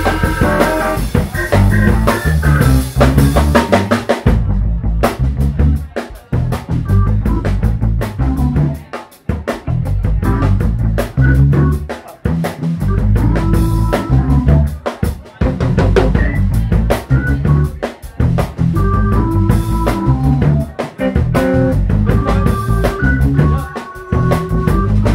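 Live soul-funk instrumental by a small band: drum kit keeping a steady beat, with electric bass, organ and electric guitar.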